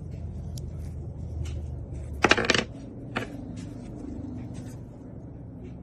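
A short rattle of hard clicks about two seconds in, like small metal parts knocking together, then a single click about a second later, over a low steady background hum.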